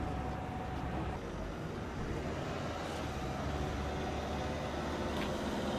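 Steady outdoor street ambience: a continuous low rumble of road traffic.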